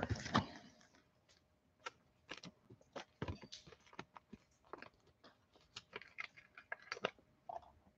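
Trading cards and their clear plastic holders being handled: faint, scattered clicks and light rustles, a few a second at most.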